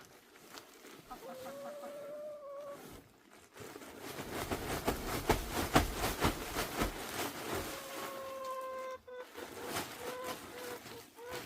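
Chickens calling: a long drawn-out call about a second in, another around eight seconds, then a run of short clucks near the end. A louder stretch of rustling and knocking fills the middle few seconds.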